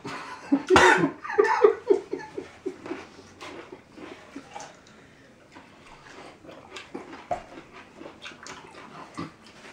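Laughter in a run of short, even pulses for about two seconds, right after a joke, then dying down into scattered small clicks and faint noises.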